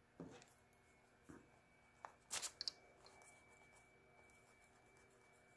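Faint handling of a pencil and eraser pen on paper over a wooden table: a few light knocks and scrapes, with a short cluster of clicks about two and a half seconds in. Otherwise near silence.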